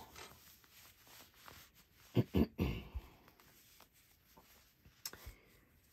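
Handling noise from a crocheted yarn sweater being turned inside out by hand: faint rustling of the fabric, two dull bumps a little after two seconds in, and a sharp click about five seconds in.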